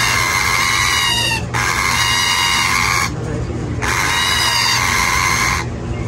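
Indian ringneck parakeet chick giving harsh, rasping food-begging cries while being hand-fed: three long calls in a row, each about a second and a half, with short breaks between them.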